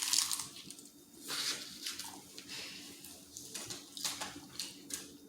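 People biting into and chewing tacos: a few irregular crisp bites and chewing noises.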